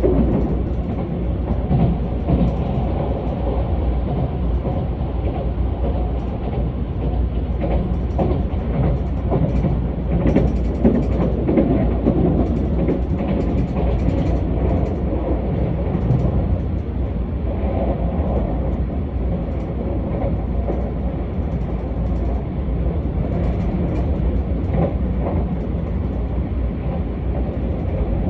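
Keisei AE-series electric train under way, heard from inside the passenger car: a steady low rumble of wheels and running gear on the track, with scattered small clicks and knocks.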